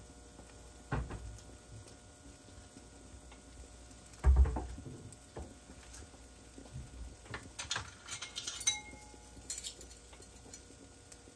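Kitchen dishes and utensils being handled: a knock about a second in, a louder thump a little after four seconds, then several light metallic clinks near the end, one ringing briefly.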